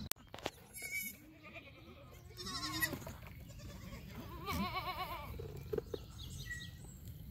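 Goats bleating in a herd, several separate calls with a wavering, quavering pitch.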